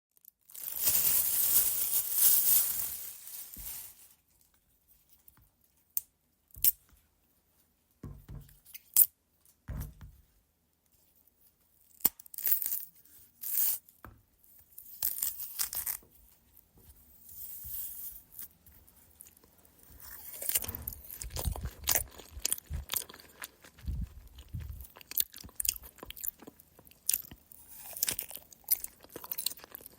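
A banana being peeled: a loud tearing rustle over the first few seconds. Then scattered sharp clicks and short rustles, and from about two-thirds of the way in, irregular bites and chewing.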